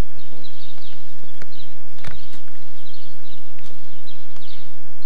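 Outdoor background noise with clusters of high chirps repeating about every half second, and a sharp knock about two seconds in.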